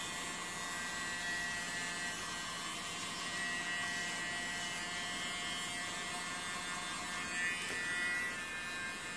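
Small electric mini blower running steadily: a whining motor with a hiss of air.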